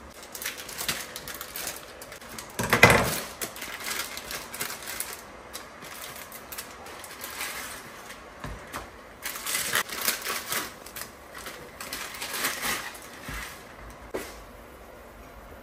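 Plastic Indomie instant-noodle packets crinkling and rustling in irregular bursts as they are handled, opened and emptied into a frying pan, with one louder crackle about three seconds in.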